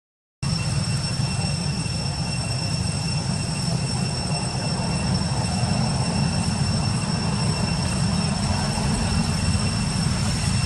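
Steady outdoor background rumble with a thin, steady high-pitched whine over it; the sound cuts out for a moment right at the start.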